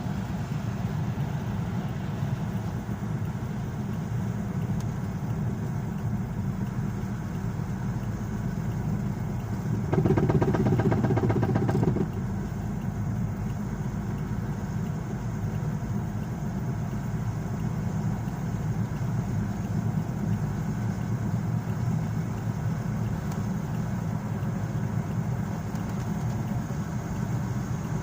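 Steady road and engine noise inside a moving car, with knocking from a wheel whose lug nuts have worked loose. About ten seconds in, a louder, rapid, even knocking runs for about two seconds.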